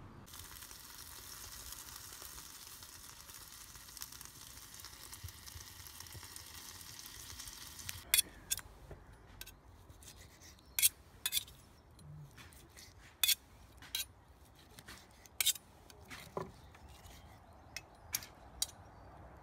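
Wood fire in a wood-fired pizza oven hissing steadily with a few faint crackles. About eight seconds in, a carving knife and fork start clicking and knocking irregularly against a wooden board as steak is sliced.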